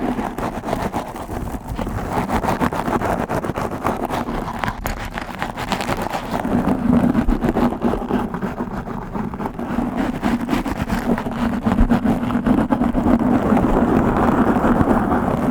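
Fingers scratching aggressively and directly on a microphone: a dense, rapid, rumbling scratch. It grows louder about six seconds in.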